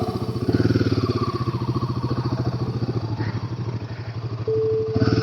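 Royal Enfield Himalayan 452's single-cylinder engine running steadily under way, with fast even firing pulses. A brief steady tone sounds about four and a half seconds in.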